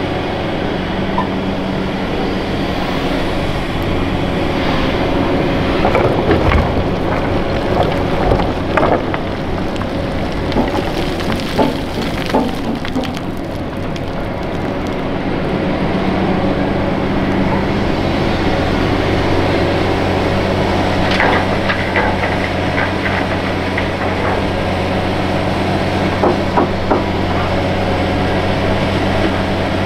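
Hitachi Zaxis 470 LCH excavator's diesel engine running steadily under load as it digs and loads dirt. Clusters of clattering knocks from the bucket and dirt come several times over the engine sound.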